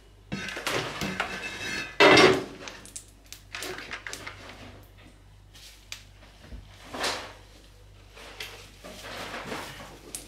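Kitchen handling sounds: a loud clatter about two seconds in, then scattered knocks and rustles of dishes and utensils being moved about.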